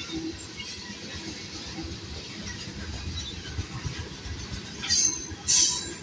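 Freight train of loaded tank cars rolling past, its wheels rumbling steadily on the rails. About five seconds in come two brief, loud, high-pitched metal screeches from the wheels.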